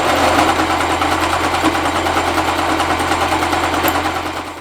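Sewing machine running steadily at speed, stitching a straight seam through folded denim with a rapid, even needle rhythm, slowing and stopping near the end.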